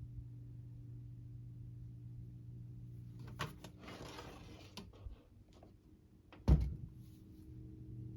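Lakewood 200 box fan's motor humming steadily on medium, straining to turn against stiff, unoiled bearings. A few clicks and rustling come in the middle, and a loud thump about six and a half seconds in.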